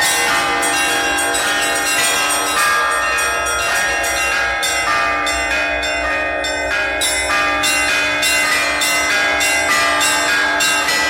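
Russian Orthodox Easter trezvon: a set of church bells rung together from the belfry, with smaller bells struck in a quick, steady rhythm over the sustained ringing of deeper bells.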